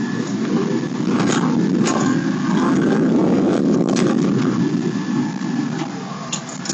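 Pickup truck driving, heard from inside the cab: a steady low engine and road rumble that swells about a second in, with a few light clicks and rattles.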